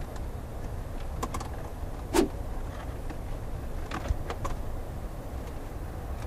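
A few light clicks and knocks as cables and a small plastic modem unit are handled under a truck's dashboard, the sharpest knock about two seconds in and another little cluster about four seconds in. A steady low background rumble runs under them.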